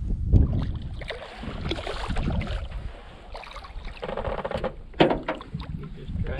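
A hooked largemouth bass splashing and thrashing at the surface beside a canoe as it is reeled in, with a couple of sharp knocks, one right at the start and one about five seconds in.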